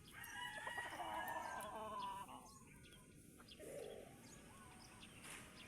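A rooster crowing once, faint, one drawn-out crow of about two seconds at the start.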